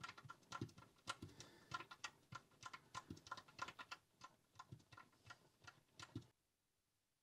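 Faint, irregular small clicks and taps, several a second, as the oil drain bolt is worked out of the engine sump by hand over a drain pan. The clicking cuts off suddenly about six seconds in.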